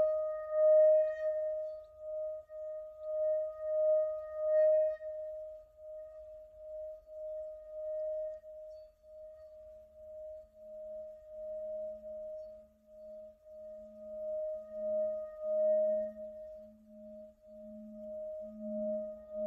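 Tibetan singing bowl sung by rubbing a padded mallet around its rim: a steady ringing tone that swells and fades about once a second. Its higher overtones die away about halfway through, while a lower hum builds from about ten seconds in and grows louder toward the end.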